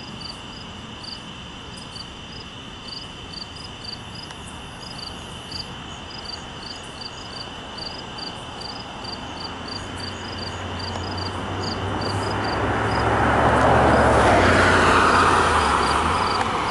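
Crickets chirping steadily in a fast, regular pulse. About ten seconds in, the noise of a passing motor vehicle's engine swells, loudest about four seconds later, and then eases off.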